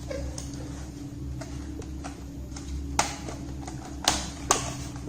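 Sharp plastic clicks and taps from laptop plastic clips being pressed home by hand, a few light ones first and three louder snaps in the second half.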